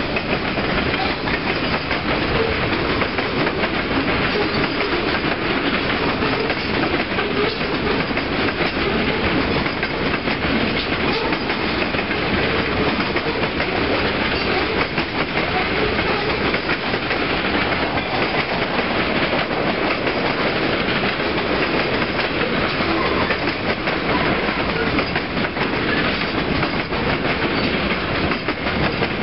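Freight train cars rolling steadily past: steel wheels running on the rails with a continuous clickety-clack of wheels over rail joints.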